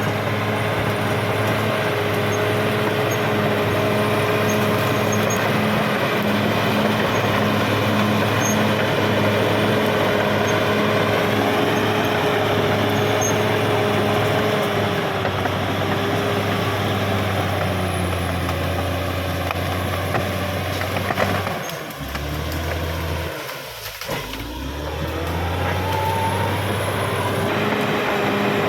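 Caterpillar D6R XL bulldozer's diesel engine running steadily under load. About 22 s in the engine note drops and quietens for a couple of seconds, then rises back up.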